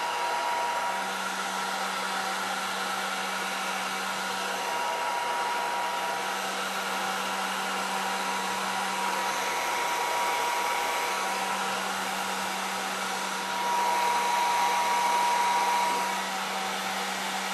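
Inexpensive electric heat gun blowing steadily with a hum and a faint whine, heating adhesive-lined heat shrink tubing over a crimped butt splice. It gets louder for a couple of seconds near the end.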